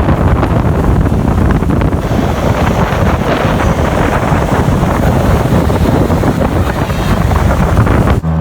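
Wind buffeting the microphone on a small motorboat under way, with the boat's engine running steadily underneath. The sound cuts off abruptly near the end.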